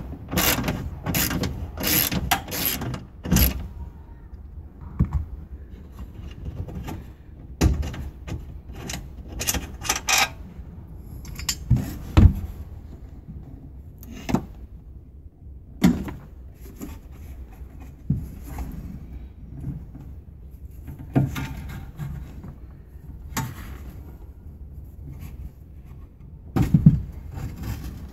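Irregular clicks, knocks and light scrapes of tools and parts being handled inside a truck cab. The knocks come in clusters in the first few seconds and again about eight to ten seconds in, with single sharper knocks after that.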